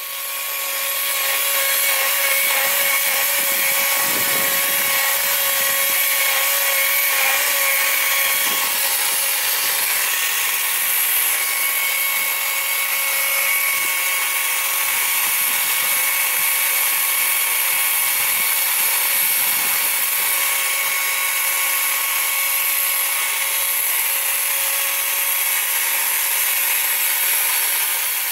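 Small Stihl chainsaw running steadily at a constant high pitch while carving into cypress wood.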